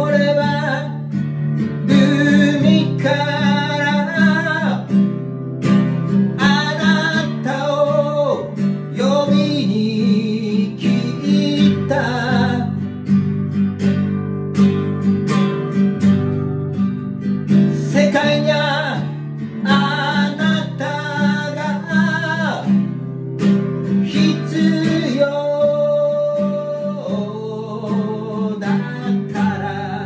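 A man singing over a strummed acoustic guitar, the voice coming in phrases with short gaps between them while the strumming keeps a steady rhythm.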